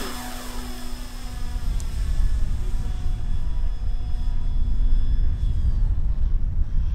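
RC DHC-2 Beaver model's motor and propeller droning steadily at full throttle in the take-off climb, with a thin high whine above it, fading away about five to six seconds in as the plane climbs out. Wind rumbles on the microphone throughout.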